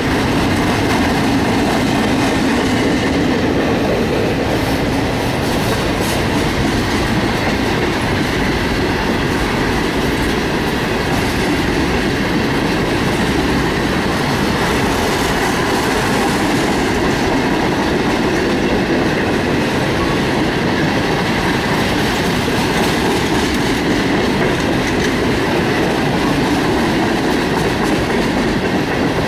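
Freight train of boxcars and tank cars rolling past close by: a steady, loud rumble and rattle of steel wheels on the rails.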